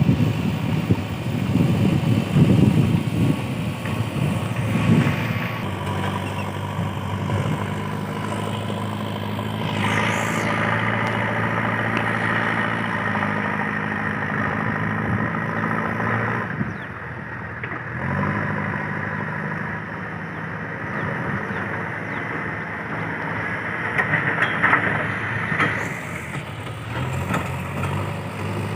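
JCB 3DX backhoe loader's diesel engine running steadily under work, with a high whine over it. It dips briefly about two thirds of the way through, then picks back up.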